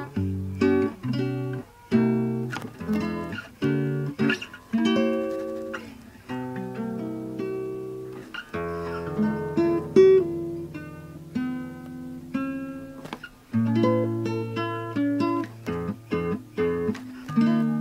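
Acoustic guitar music: a steady run of single notes and chords, each note ringing out and fading.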